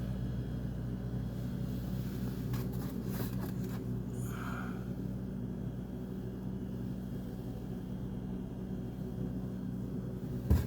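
Steady low mechanical hum, like an idling engine, with a few faint clicks partway through and a sharp knock near the end.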